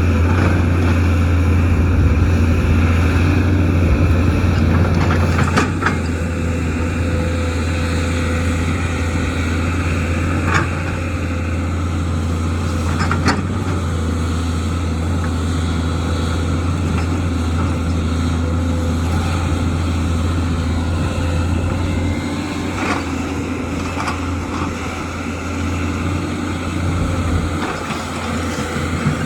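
Excavator's diesel engine running steadily with a deep drone, with a few sharp knocks as rock and debris are handled.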